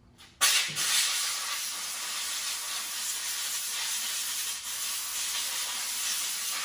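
Steady loud hiss of a spray from a hose nozzle, starting suddenly about half a second in.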